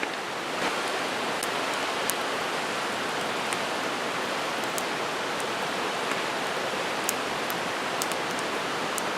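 Steady rush of stream water, with scattered sharp pops and crackles from a wood campfire.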